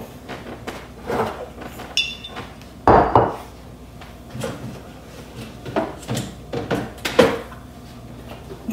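Refrigerator door opened and glass jars and bottles handled, a string of short knocks and light clinks, the loudest a solid knock about three seconds in.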